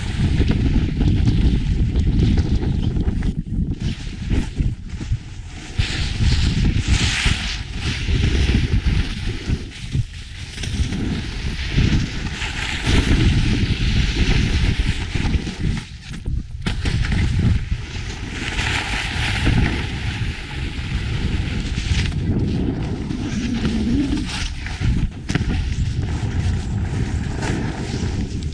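Wind rushing over a moving camera's microphone during a fast snowboard run, with the hiss of snowboard edges scraping and carving through snow. The hiss swells and fades with each turn.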